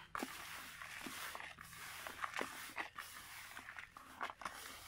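Hands stirring dry carp groundbait (hemp seed, ground and whole tiger nuts and feeder mix) in a plastic bucket: irregular soft rustling and crunching of the particles.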